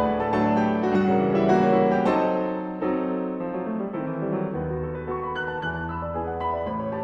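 Background piano music: notes over a held bass line, getting a little softer about three seconds in.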